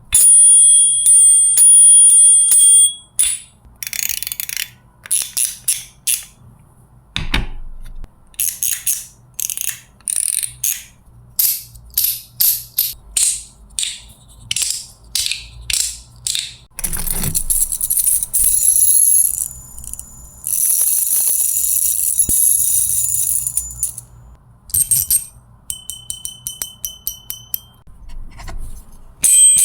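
Small toy spinner: a bright metallic ring at the start, then a long run of short, high-pitched whirring strokes, a few seconds of steady high hiss in the middle, and another ring near the end.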